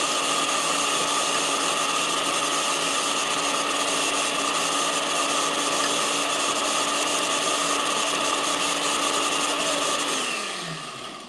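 Countertop blender running steadily with its motor whine, mixing a thick peanut cake batter with whole eggs added. About ten seconds in it is switched off and the motor winds down, its pitch falling.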